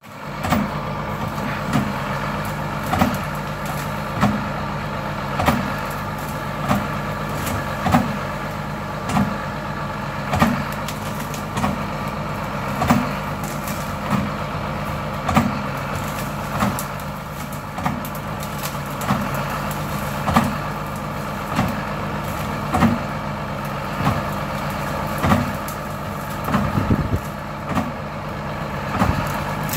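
John Deere tractor running steadily while brush cutting, with a regular thump about every second and a quarter over the engine note.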